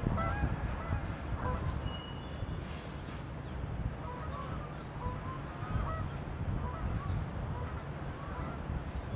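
Freight cars rolling past with a steady low rumble of wheels on rail. Short honking bird calls come and go over it.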